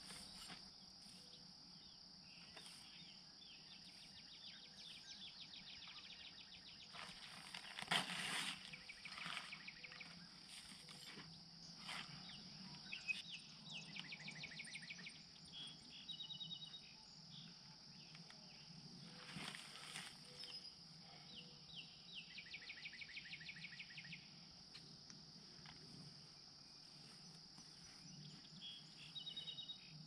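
Faint rural outdoor ambience: a steady high insect drone with repeated rapid chirping trills coming and going. A couple of soft knocks stand out about eight seconds in and again near twenty seconds.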